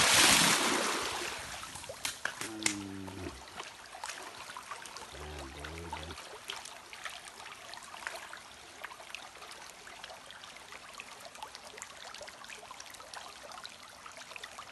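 Stream water trickling and bubbling close to the microphone, with many small clicks and pops. A loud rushing splash at the start fades away over the first couple of seconds.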